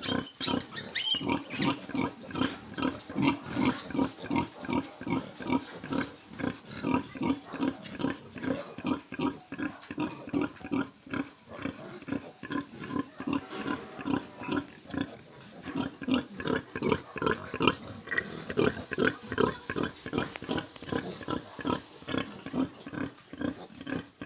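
Large White sow giving rapid, regular nursing grunts, about two to three a second, while her litter of piglets suckles.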